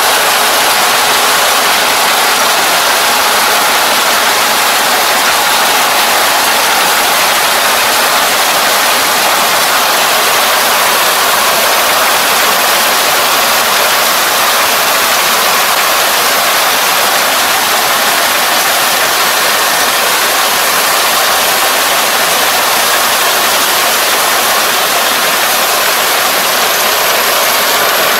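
Kubota ER470 four-row combine harvester running steadily while cutting and threshing rice, its engine and machinery making a loud, even noise.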